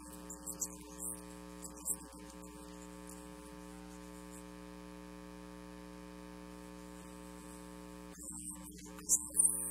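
Steady electrical mains hum with its overtones, with a few brief faint sounds in the first two seconds and louder short sounds near the end.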